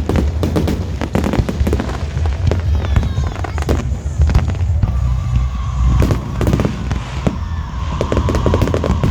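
Fireworks display: a rapid, continuous run of bangs and crackles over a low rumble. A steady high-pitched tone joins about halfway through.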